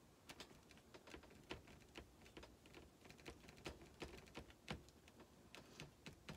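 Faint, irregular light clicks and taps of fingertips pressing glued rhinestones down around the rim of a silver-plated tray.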